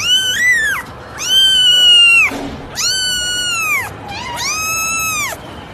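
Cat yowling in four long, drawn-out cries of about a second each, each held on one pitch and then falling away at the end: an unhappy, complaining cat.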